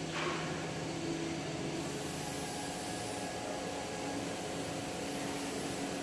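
Steady machine hum: an electric motor running with a faint low drone under an even noise, no load changes or strikes.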